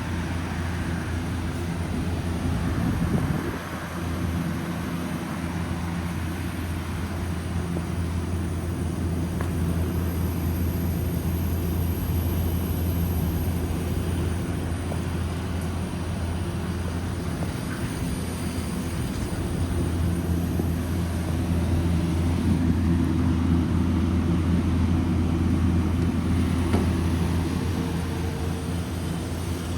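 Orion RKE2200B1-V-G2 inverter chiller running on test: a steady low machine hum with an even rushing noise over it, swelling a little about three-quarters of the way through.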